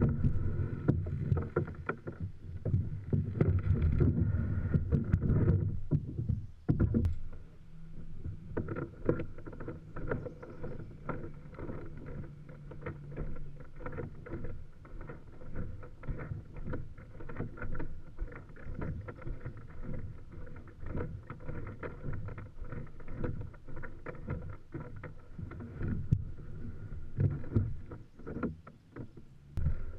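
Plastic kayak being pulled out from under a wooden rack and dragged over the ground, its hull rumbling, bumping and scraping, heard through a camera mounted on the kayak. The heaviest rumbling and knocking come in the first six seconds. After that there is a steady run of small knocks and scrapes.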